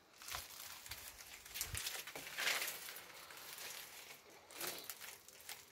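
Faint, irregular crunching and rustling of footsteps on dry ground and vegetation, a few separate scuffs a second or so apart.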